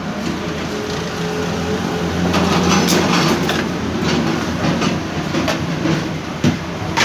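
Canon iR 1133 copier running, a steady mechanical hum with an irregular clattering of clicks and knocks from its drive gears, the gear noise it was being repaired for. Two sharper knocks come near the end.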